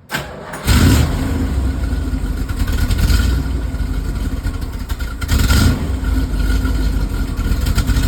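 Car engine starting up and running, with a brief burst before it catches, and the throttle blipped twice, about three and five and a half seconds in.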